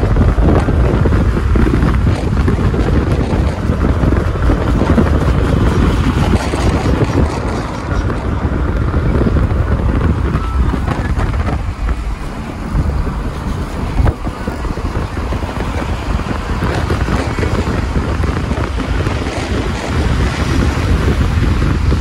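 Road and traffic noise from a car driving through city streets, with heavy wind buffeting on the microphone.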